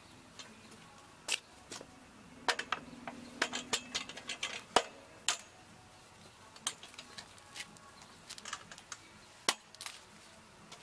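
Ducati Performance single-sided rear paddock stand clanking and clicking as it is rolled on its casters over concrete, its pin is fitted into the motorcycle's rear hub, and the bike is levered up onto it. It makes a string of sharp knocks, loudest about five seconds in, with another loud knock near the end.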